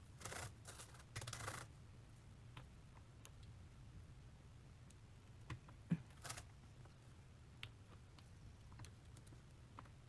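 Faint clicks, taps and scratches of a diamond-painting drill pen setting resin drills onto the adhesive canvas: two short scratchy rustles near the start, a sharper click about six seconds in, and scattered light taps.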